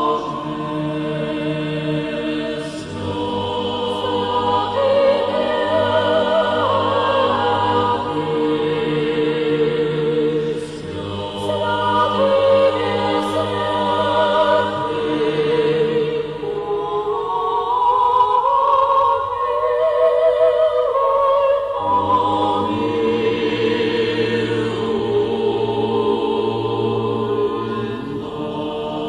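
Background choral music: a choir singing slow chant with long held notes over a low sustained bass.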